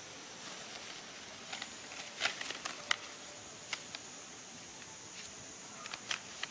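Scattered light clicks and rustles of handling: a folded umbrella being fitted into a frame of wooden sticks, over a steady faint hiss. The clicks come in a cluster about two seconds in and again near the end.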